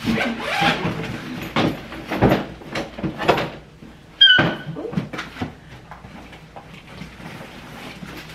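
Rummaging in a suitcase: irregular rustles, scrapes and soft knocks as fabric packing cubes are pulled out. About four seconds in, a sharper knock comes with a brief squeak.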